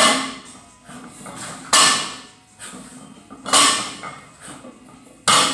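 Plate-loaded barbell set down on the gym floor on each deadlift rep: four metal clanks of iron plates, about one every second and three-quarters, each ringing briefly.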